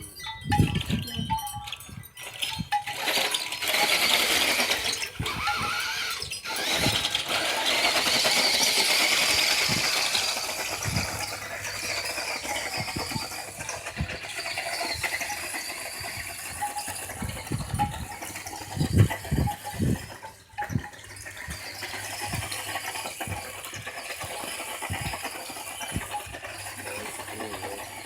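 Toy RC truck driving, its motor and gears whining in swells that rise and fall, with scattered knocks.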